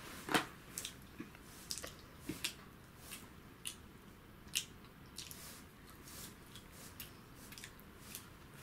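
Irregular small clicks and taps of plastic construction-kit parts being handled, with the loudest click about half a second in and lighter ones scattered after it.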